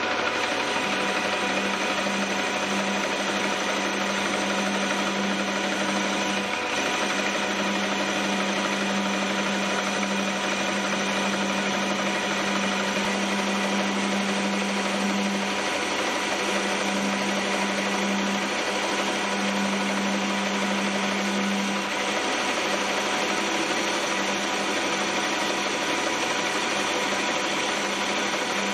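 Metal lathe running steadily, taking finishing cuts on the spigot of a steel chuck backing plate: an even motor whine with a low hum that drops out briefly now and then.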